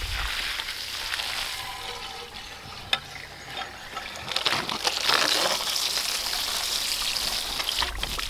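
Water spraying into the fuel tank of a 1954 Caterpillar No. 6 shovel's pony motor, flushing out old fuel gunk. The hiss grows louder about four and a half seconds in, with a single click near the middle.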